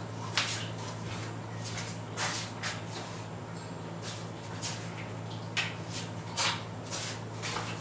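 A steady low hum with about eight short, scattered knocks and rustles of small handling noise.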